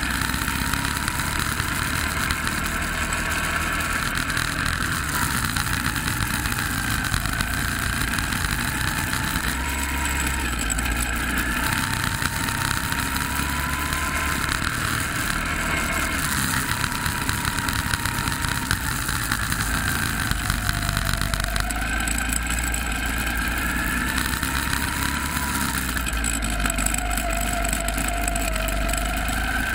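Go-kart running at speed, heard from the driver's seat: its motor pitch repeatedly rises and falls as it accelerates out of and slows into corners.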